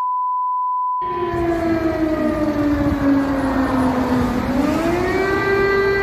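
A censor bleep for about a second, then an air-raid siren wailing: its pitch sinks slowly, rises again about four seconds in, and then holds steady.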